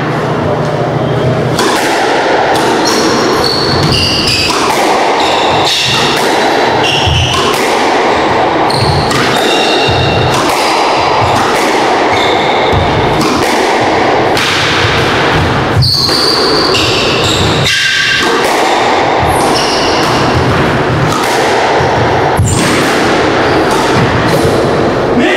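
A squash rally: the ball cracking off the rackets and thudding against the court walls again and again, with shoes squeaking on the wooden floor as the players run.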